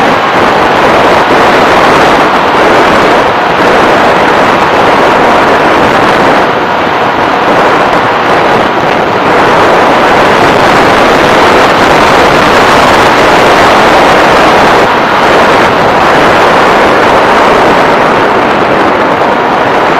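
Loud, steady rush of wind and propeller noise from an FPV model aircraft in flight, with a faint steady whine.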